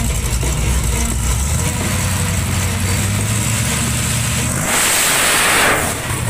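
Pickup truck engine running with a low, steady rumble at the drag strip start line, then about four and a half seconds in a loud rush of noise as the truck launches at full throttle, fading as it pulls away.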